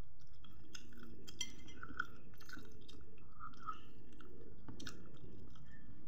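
A person chewing a mouthful of fried cempedak fritter, with small scattered mouth clicks, over a steady low hum.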